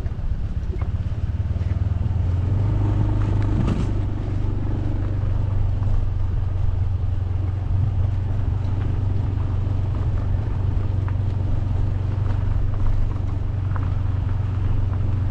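Motorcycle engine running steadily at low speed while riding along a rough dirt track, its note changing briefly about four seconds in.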